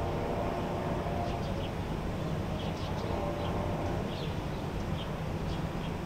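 Steady hum of a hotel ventilation system with distant road traffic beneath, and small birds giving short high chirps several times.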